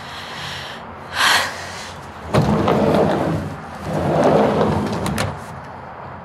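A brief swish, then a door sliding along its track for about three seconds in two pushes, ending in a few sharp clicks.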